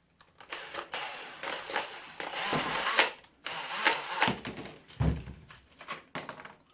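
Tools working on scrap metal: irregular scraping and grinding with clicks for the first few seconds, then a couple of sharp metal knocks.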